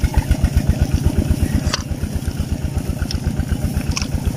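Small engine of a vehicle hauling a load of rice sheaves, running with a steady low chug of about ten pulses a second.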